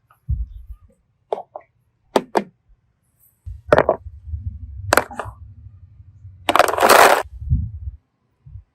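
Sharp clicks and taps of small plastic pieces being handled, a handful of separate strokes, then a louder crackling burst lasting under a second about six and a half seconds in.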